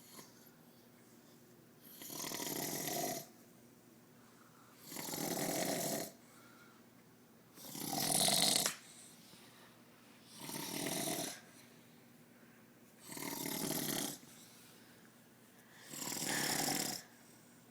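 A man snoring in a steady rhythm: six snores, about one every three seconds, each lasting about a second.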